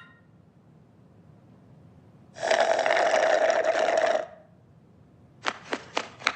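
A raspy, hissing sound lasting about two seconds, then a quick run of sharp flapping slaps near the end: gloves flapped together as the sound of a bird's wings.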